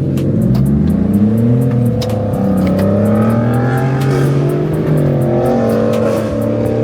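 Kei truck engine revving as it accelerates through the gears, rising in pitch and dropping at shifts about two and four seconds in, heard from inside the cab. The driver says afterwards that he burned the clutch on a shift here.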